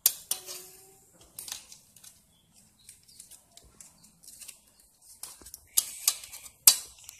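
Metal spoons clinking and scraping in a small stainless steel bowl of chocolate mixture. There are a few sharp clinks at the start and a cluster of louder ones near the end, with quieter scraping between.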